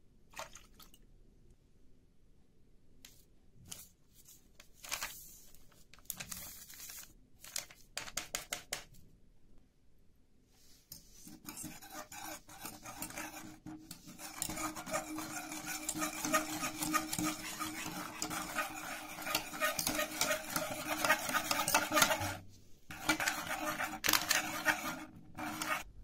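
A wire whisk beating a brown milk mixture in a stainless steel pot, a fast continuous rattling scrape of the wires against the pot that starts about eleven seconds in, with a brief pause near the end. Before it come a few scattered clinks and short pours of powder from a glass into the pot.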